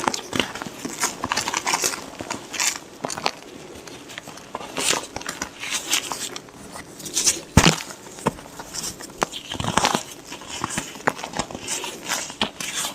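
White gym chalk being crushed and crumbled by hand close to the microphone: irregular crisp crunches and crackles, with one sharper, louder crunch a little past halfway.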